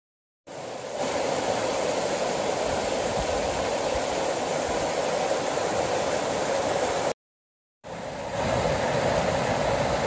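River water rushing over a stepped stone weir, a steady rush. It cuts out about seven seconds in and comes back as water tumbling down a small waterfall.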